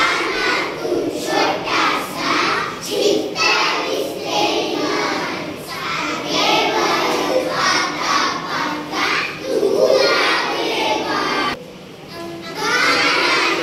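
A class of young children singing a rhyme together in unison, a sing-song chorus of many voices, with a brief pause near the end before they start again.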